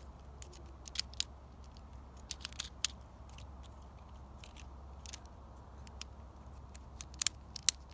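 Plastic clicks and snaps of a Bakugan figure's hinged parts as it is folded shut by hand into its ball form. The clicks come irregularly, a dozen or so, with the sharpest two near the end.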